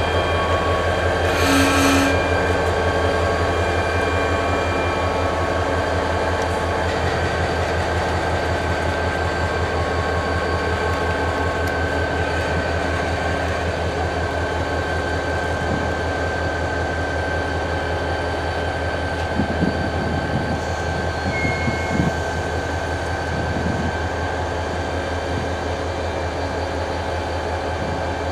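Kansas City Southern diesel locomotives running at low speed, with a steady low engine throb and droning tones. A short hiss comes about a second and a half in, and a few light knocks come later.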